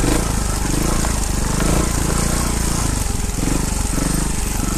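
Trials motorcycle engine running at low revs, its pitch swelling and dipping every half second or so as the throttle is worked while the bike picks its way over a rocky trail.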